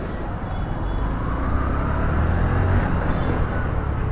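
Steady road noise from a moving commuter motorcycle, a Honda Shine, with its engine running, heavy low wind rumble on the mic and surrounding traffic. The low rumble swells slightly about two seconds in.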